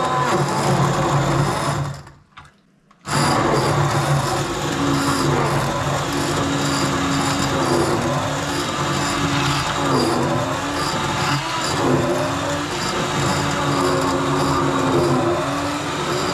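Electric blender puréeing a hot-pepper sauce. The motor runs steadily, cuts out for about a second roughly two seconds in, then runs again, its pitch dipping briefly a few times as the thick mixture churns.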